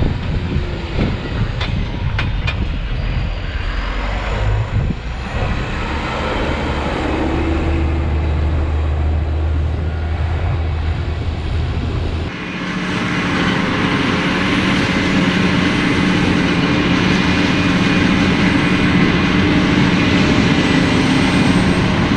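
Heavy engine running steadily, likely farm machinery. About twelve seconds in, it cuts to a different steady engine sound with a higher hum.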